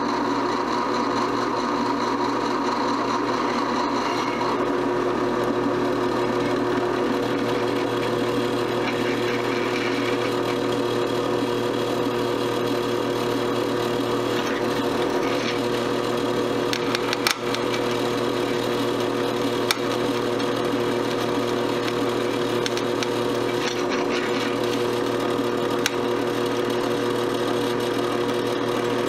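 Drill press running steadily as its twist bit drills a pilot hole through two metal plates tacked together, a constant motor hum with the grinding of the bit cutting metal. A few short clicks come from the work about two-thirds of the way through.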